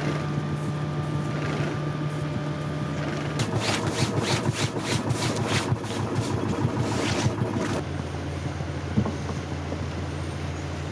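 A boat's engine humming steadily, its pitch dropping lower a few seconds in, with a run of irregular knocks and rustles in the middle.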